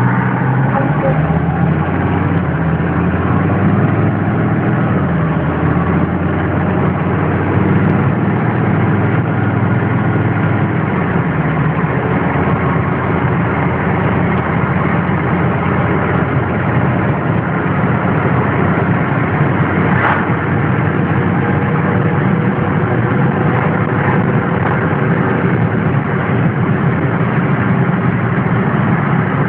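Mercedes-Benz W123 300TD's five-cylinder OM617 turbodiesel idling on its first run after restoration. The idle shifts a little during the first ten seconds or so, then runs steady.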